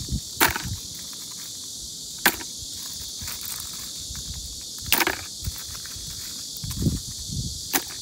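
Wild oysters being picked off a rock and dropped into a plastic bucket: four sharp shell clacks a couple of seconds apart, with a few softer knocks near the end, over a steady high hiss.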